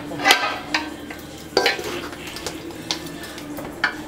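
Metal spoon scraping and clinking against the sides of a large metal pot as a thick meat fry is stirred: about six sharp strokes at uneven intervals.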